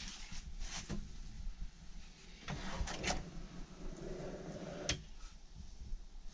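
Wooden under-sink cupboard pull-outs being opened, sliding on their metal drawer runners in short scrapes, with a sharp click about five seconds in.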